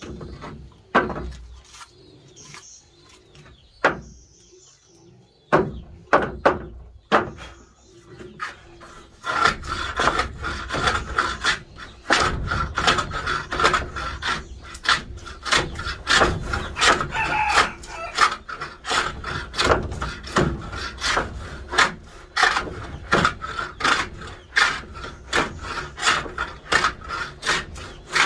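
A few scattered knocks on wood, then, from about a third of the way in, quick repeated strokes of a hand tool scraping wood, about two or three a second, as slats are smoothed by hand.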